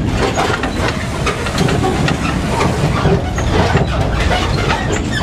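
Open-air sightseeing road train on the move: a steady low engine and road rumble with rattling from the cars.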